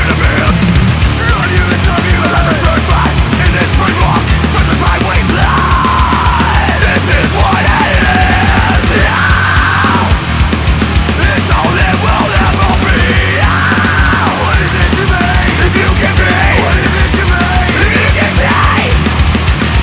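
Heavy metal song from a full band, loud and without a break.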